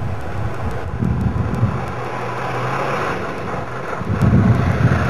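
Jeep Wrangler engine running as it drives along a dirt road toward the microphone, getting louder about four seconds in.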